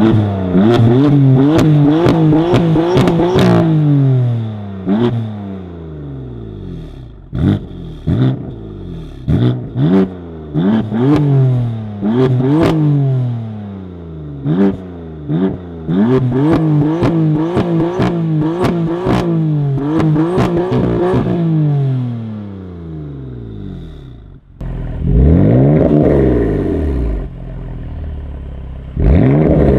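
BMW M4 F82's twin-turbo straight-six revved hard over and over, its pitch climbing and falling, with sharp crackles and pops from the exhaust. The sound breaks off about 24 seconds in, and two more short revs follow.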